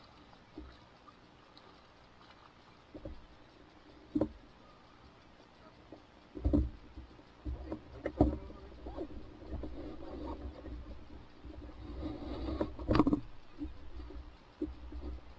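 Handling noise as a freshly caught fish is landed and held up in an inflatable boat: scattered knocks and thumps with rustling, over a low rumble that swells in the second half. The loudest thump comes near the end.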